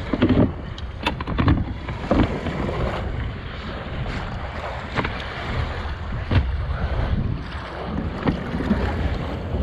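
Wind on the microphone and small waves lapping against the hull of a Sea-Doo Spark jet ski in shallow water, with several sharp knocks and taps as a hand handles the seat and hull, most of them in the first couple of seconds and one more a little past six seconds in.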